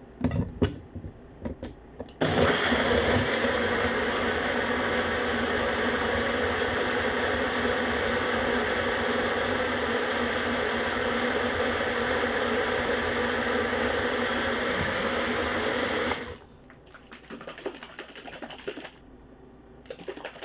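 Countertop blender running steadily as it blends a fruit smoothie, starting suddenly about two seconds in and cutting off a couple of seconds after the middle. A few knocks and clicks come just before it starts and after it stops.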